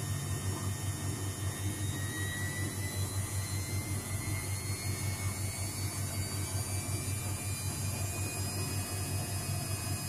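Luxor WM 1042 front-loading washing machine in its spin cycle with an unbalanced load: a low hum that pulses rhythmically, under a motor whine that rises slowly in pitch as the drum speeds up.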